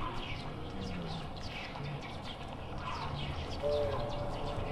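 Forest birdsong: several small birds chirping in quick, falling notes over a steady background hum of the woods, with a brief lower call about three and a half seconds in.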